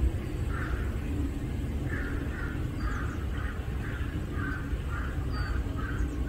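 A bird calling over and over in short, harsh calls, about two a second, over a steady low outdoor rumble.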